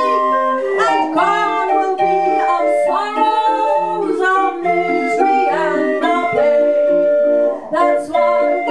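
A 20-tone hand-cranked barrel organ built by Florian Tilgner is playing the ballad tune in steady organ-pipe notes with a repeating bass note. A woman is singing over it.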